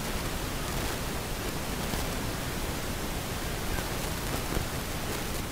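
Steady rushing noise of a stadium's field sound, with no distinct events.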